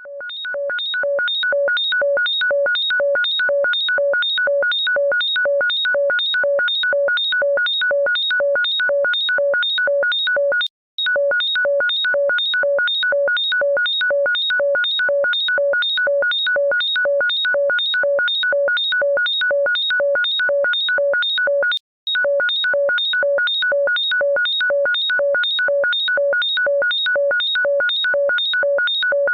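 Electronic ringtone beeping rapidly and repetitively, about three short multi-pitched beeps a second, with two brief breaks where the loop restarts about 11 and 22 seconds in.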